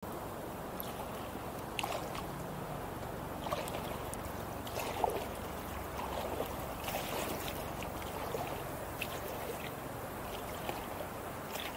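Shallow water lapping and sloshing close by, with small splashes and ticks scattered through it.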